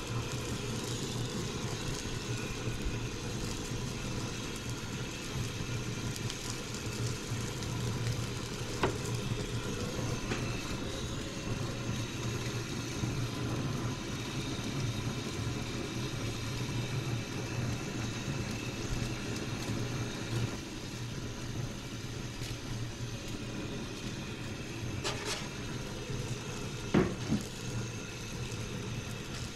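Fish sizzling on an outdoor grill under a steady low rumble, with a few sharp knocks; the loudest knock comes near the end.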